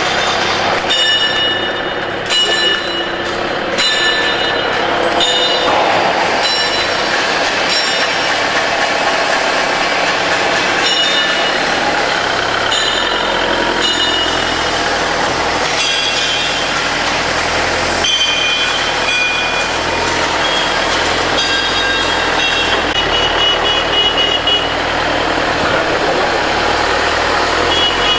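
ACE forklift running and manoeuvring, its engine a steady drone, with a high reversing alarm beeping on and off in several stretches.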